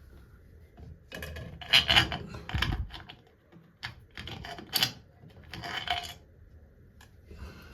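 Bathtub faucet trim clicking and clattering against the wall in a string of irregular knocks as it is shifted around to line up its screw holes.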